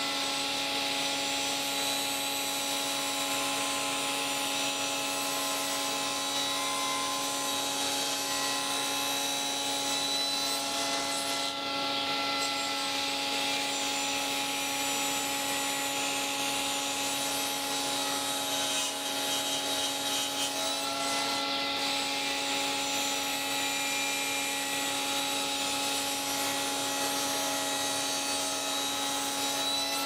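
Table saw running with a steady motor hum while its blade cuts through a wooden board fed along the rip fence.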